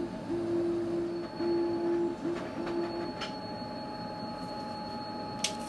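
Canon imagePROGRAF 4100 large-format printer drawing in a paper roll: its feed motor whines in several short runs and stops about three seconds in. A couple of sharp clicks follow near the end.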